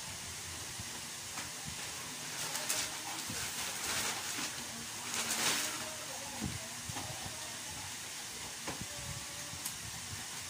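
Steady hiss with a few brief rustling scrapes, the loudest about five seconds in, from self-adhesive vinyl wallpaper being handled and pressed onto a refrigerator's side panel.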